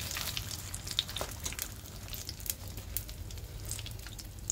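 Hot oil sizzling with many small crackling pops around samosas deep-frying in a kadhai, as they are scooped out on a wire strainer to drain.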